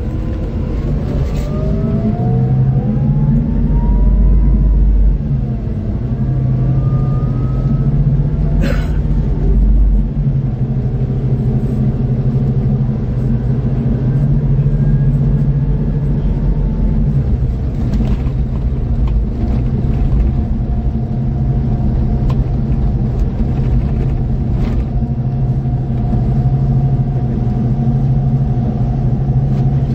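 Scania K440 coach's six-cylinder diesel engine running under load with a deep rumble. In the first few seconds it accelerates, with whining tones rising in pitch. There is a single sharp noise about nine seconds in, and after that the engine runs steadily.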